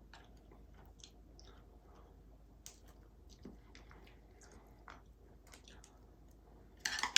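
Close-miked chewing of braised fish and seafood, with scattered soft wet mouth clicks and smacks. A louder, sharper burst of sound comes near the end.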